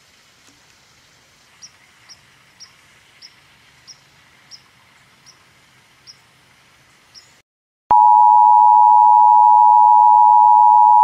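Loud steady electronic test tone of a colour-bars card, starting about eight seconds in after a brief dropout to dead silence. Before it, faint outdoor quiet with about ten short high chirps, roughly two a second.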